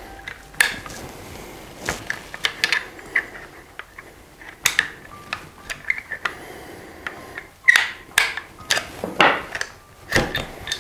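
Irregular metallic clicks and knocks of a tool working the screw behind the trigger guard of a Sako TRG M10 rifle and of the rifle's parts being handled as the buttstock is loosened from the receiver.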